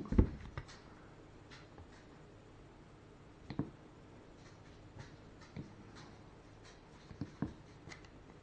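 Hard plastic headset earcup being handled and turned over: a couple of louder knocks right at the start, then scattered light clicks and taps.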